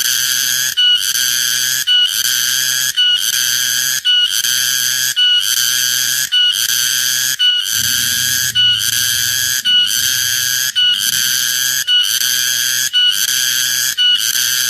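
Cicada calling loudly: a shrill buzz repeated about once a second, each phrase ending in a brief higher note before a short break.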